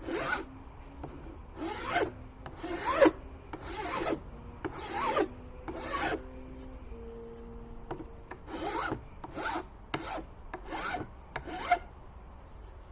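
Shinto rasp being pushed in strokes across wood, each stroke a short rasping scrape, about one a second, with a pause of about two seconds midway.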